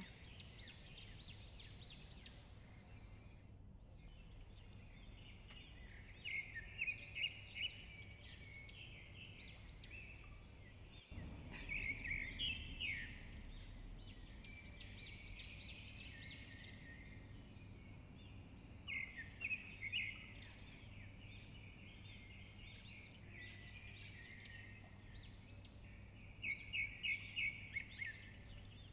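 Small birds chirping in four short bursts of quick, high chirps, over a steady low hum.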